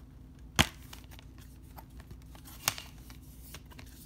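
A plastic Blu-ray case being handled and snapped open: a sharp click about half a second in, a second click about two-thirds of the way through, and lighter plastic clicks between.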